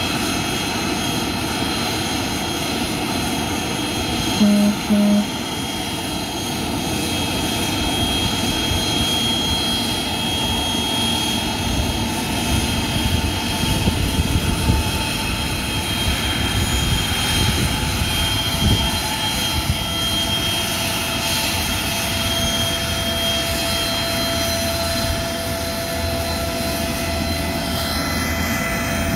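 Aircraft engines running steadily, with several steady high tones over a constant rush. Two short beeps sound about four and a half seconds in.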